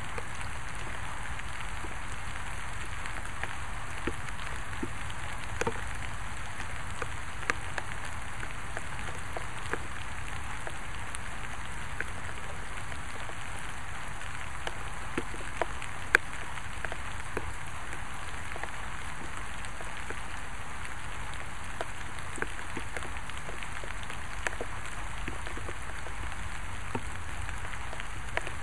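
Steady rain falling, with scattered single drops ticking close by and one louder tick about halfway through.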